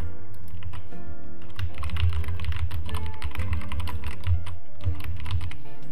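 Typing on a computer keyboard: a quick, irregular run of key clicks as a line of text is typed. Background music with a steady bass plays underneath.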